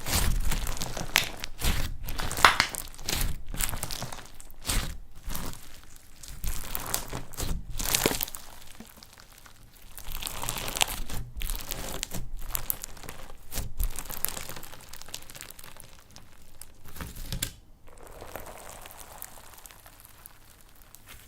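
Slime being squeezed and pressed by hand, giving irregular crackling, crinkling and crunching, with short quieter pauses between handfuls.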